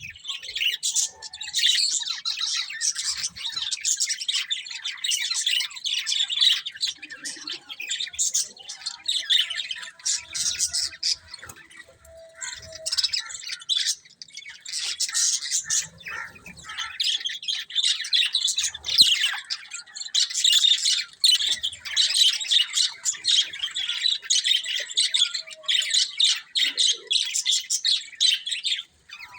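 Budgies chattering and chirping in rapid, continuous twitters and squawks, thinning out briefly about halfway through before picking up again.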